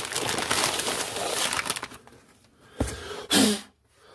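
Kraft-paper Amazon mailer rustling and crinkling as boxes are pulled out of it, then a single knock a little before the end, followed by a short low hum from a person.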